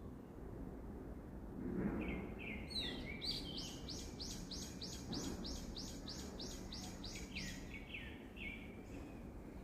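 A songbird singing: a few single notes, then a rapid run of repeated downslurred notes at about four a second lasting some four seconds, ending in a few lower notes, over a steady outdoor background hiss.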